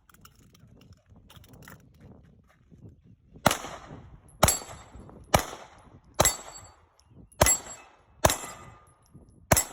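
Seven single gunshots fired at a steady pace, about one a second, starting about three and a half seconds in, each with a short fading tail.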